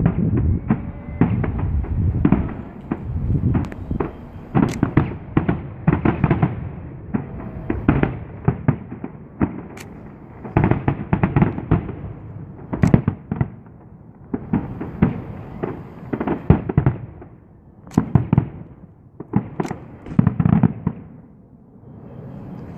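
Aerial fireworks shells going off in quick succession, deep bangs mixed with sharp cracks, the barrage thinning and stopping about two seconds before the end.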